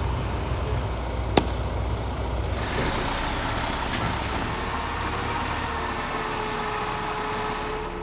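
A heavy work vehicle's engine running steadily. There is a single sharp click about a second and a half in, and a broad rushing hiss comes in at about three seconds.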